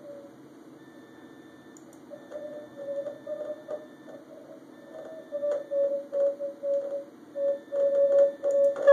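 Morse code (CW) signal on the 40-metre band, heard through a SoftRock software-defined radio receiver. A single mid-pitched tone keys on and off in dots and dashes over band hiss. It comes in stronger about halfway through as the station is tuned in.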